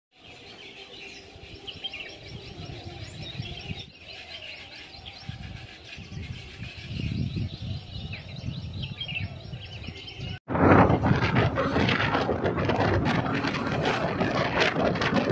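Birds chirping over a low rumble. About ten seconds in, a sudden cut to loud, rough noise with crackles, like wind buffeting the microphone.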